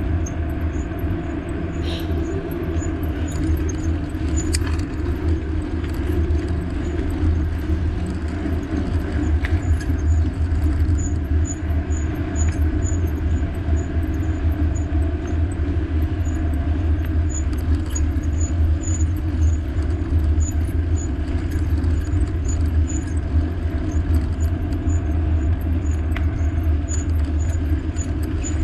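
Steady low rumble of riding, with wind and road noise on the camera microphone, and a faint high ticking a few times a second.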